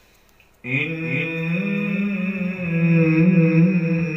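A male qari's voice chanting Quran recitation in a long, drawn-out melodic phrase with wavering held notes, coming in suddenly about half a second in after a brief pause for breath.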